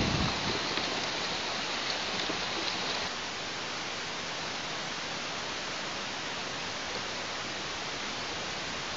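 Steady rain falling during a thunderstorm, an even hiss with no thunder heard; it drops a little in level about three seconds in.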